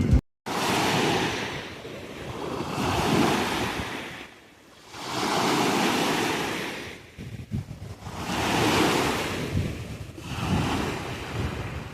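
Sea waves washing onto the beach, each one swelling and falling away every two to three seconds, with wind buffeting the microphone.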